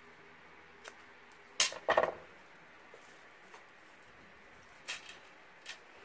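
Craft scissors snipping a ribbon end: two sharp clicks close together about a second and a half in. Around them, soft clicks and rustles of cardstock and ribbon being handled.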